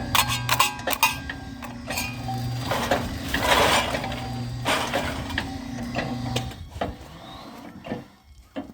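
A homemade log splitter's 0.5 hp electric motor and 60:1 reduction gearbox running with a steady hum, with clicks and knocks from the mechanism and a crackling burst about three and a half seconds in. The motor stops about six and a half seconds in. The builder judges the machine underpowered and blames the motor's low horsepower.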